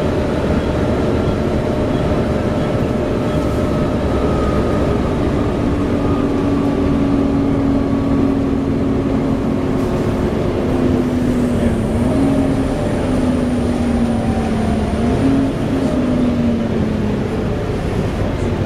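Volvo B7TL double-decker bus running under way, heard from on board: a steady engine drone and road noise, its droning tone sliding slowly and dipping briefly twice in the second half.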